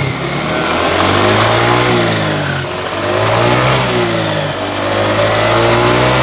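Suzuki Nex scooter engine revved up and dropped back several times, rising and falling in pitch about three times. The CVT runs smoothly, its worn roller housing having been fixed.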